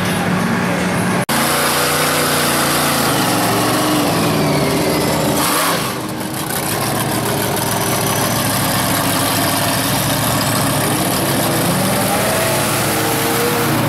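Engine of a lifted mega mud truck running loudly as the truck drives across sand. The revs drop shortly after the start, then climb again about five seconds in.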